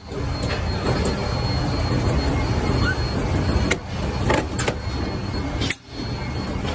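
Factory machinery running with a steady low hum, with a few sharp metallic knocks a little past halfway.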